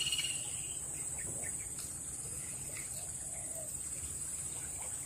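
Steady high-pitched drone of insects, with a few faint short bird chirps over it.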